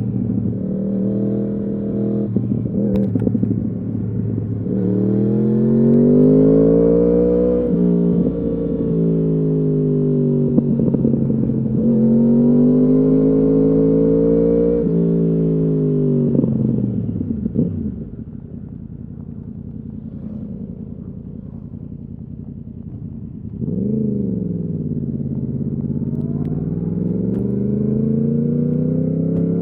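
2015 Yamaha R1's crossplane inline-four, through a full Akrapovič exhaust, under way. Its note climbs under acceleration and drops back a few times, then falls off about two-thirds of the way through and runs low and quieter. Near the end it builds again after a quick jump and dip in pitch.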